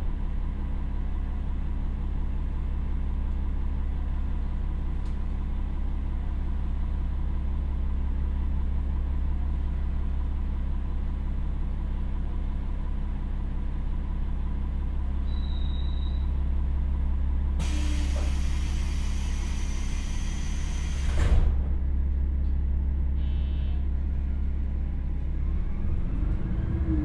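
Komatsu diesel engine of a KiHa 47 railcar idling steadily while the train stands, heard from inside the car. About two-thirds through, compressed air hisses for about four seconds and ends in a thump. Near the end the engine starts to rise in pitch as the train pulls away.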